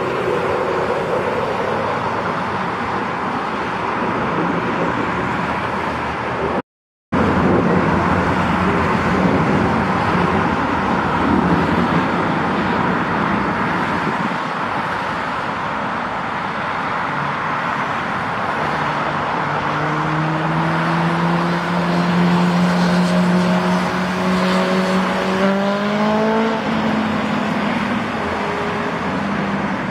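Loud, steady engine roar with a brief gap about seven seconds in. From about twenty seconds in, a low engine note rises slowly in pitch, climbing faster near the end.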